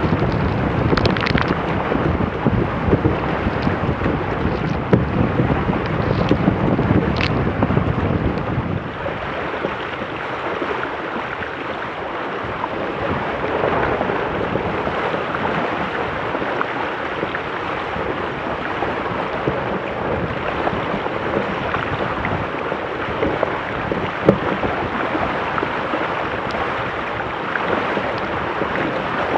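Wind buffeting the microphone and water rushing and splashing along the hulls of a Weta trimaran sailing fast. The low wind rumble drops away about nine seconds in, leaving mostly the hiss of water and spray.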